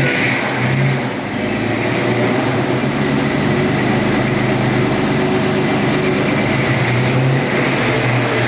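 Car engine idling steadily through an aftermarket Flowmaster exhaust, a deep even rumble that swells slightly now and then.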